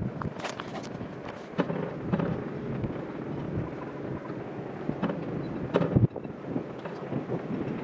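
Wind buffeting an outdoor microphone, a rough rumbling hiss broken by irregular knocks and crackles, the sharpest about half a second in and near six seconds.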